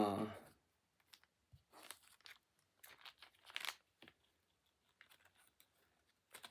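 Faint crinkling and rustling of plastic packaging being handled, in short irregular crackles with a few light clicks.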